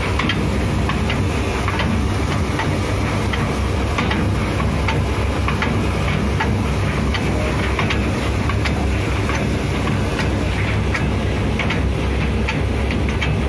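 Tugboat anchor windlass running with its chain clattering: a steady low machinery drone with quick, irregular metallic clicks on top.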